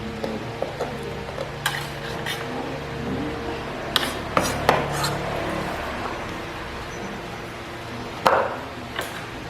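Eating utensils clinking and knocking against a bowl: a handful of short, separate clinks, a cluster of them about four to five seconds in and a louder one near the end, over a steady low hum.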